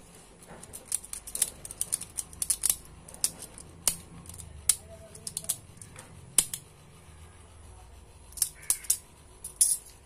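A small knife blade cutting and scraping melted plastic from around a freshly melted hole in a plastic bottle cap: a run of short, sharp clicks and scrapes, in quick clusters at first and again near the end, with single ones in between.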